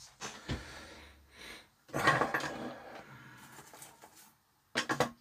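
Handling noises on a workbench: soft scraping and rustling as a stripped cable and small tools are handled, with a few sharp clicks near the end as something is set down.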